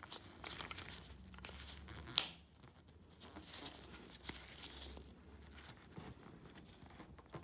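Nitrile-gloved fingers and a metal key blade scraping and rubbing at a plastic BMW remote key fob while prying off its battery cover, with one sharp click about two seconds in.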